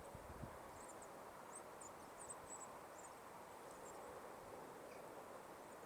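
Near silence: faint outdoor ambience with a scatter of short, faint high chirps.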